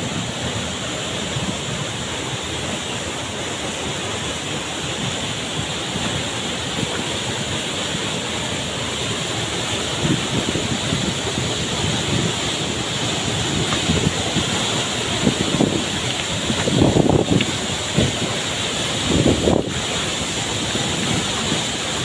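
Waterfall plunging into a shallow rocky pool, a steady rush of falling and splashing water. In the second half, wind buffets the microphone in low gusts.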